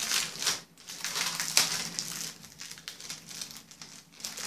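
Clear plastic packaging crinkling as it is handled and turned over, in bursts that are loudest in the first two seconds and then die down.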